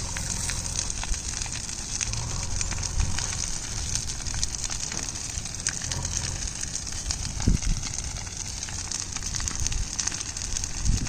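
Brush fire burning dry vegetation: a steady hiss with many small sharp crackles and pops.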